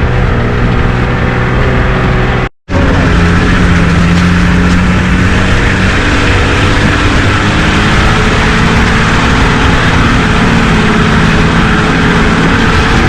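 A 4x4 vehicle driving, its engine running steadily under heavy wind and road noise. The sound cuts out completely for a moment about two and a half seconds in, then carries on.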